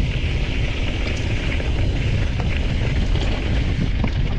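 Wind rumbling and buffeting on the microphone, with a steady higher hiss and a few faint clicks.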